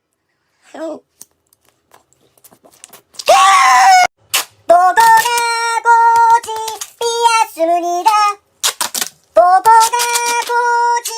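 After a near-silent start with faint clicks, a loud, rough vocal burst like a shriek comes about three seconds in. A high voice then sings a run of short, held notes that step up and down in pitch.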